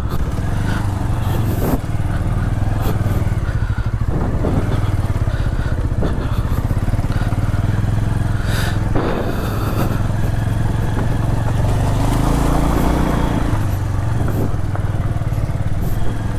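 Motorcycle engine running steadily at low speed, with a few short knocks and rattles.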